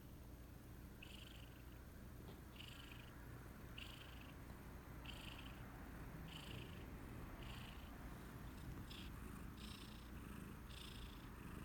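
A cat breathing close to the microphone: a faint, short raspy hiss with each breath, about one every second and a quarter. The owner wonders whether it is a slight wheeze.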